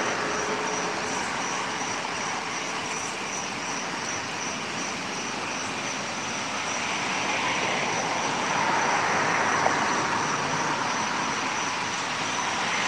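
Steady road and traffic noise that swells as a vehicle passes around the middle, then eases off. A faint, evenly pulsing high-pitched tone runs underneath.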